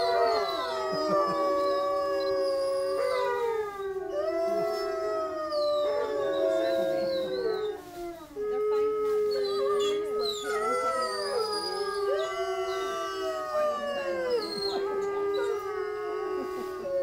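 White wolf howling: long drawn-out howls lasting a few seconds each, gliding down at their ends, with other howling voices overlapping at different pitches in a chorus. There is a short break about eight seconds in.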